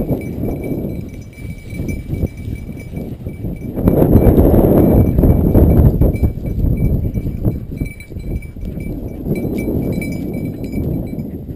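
Wind buffeting the camera microphone in gusts, loudest about four to six seconds in, over the rustle of footsteps through dry grass and brush. A faint steady high tone runs underneath.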